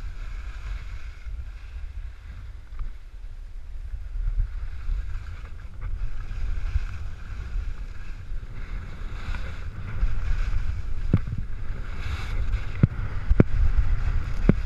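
Wind buffeting the microphone of a skier's action camera during a downhill run, with skis scraping and hissing over choppy snow. A few sharp clicks come near the end.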